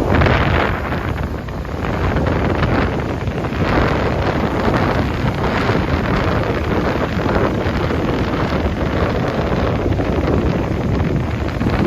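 Strong sea wind buffeting the microphone, rumbling and swelling in gusts, over the wash of surf on the beach.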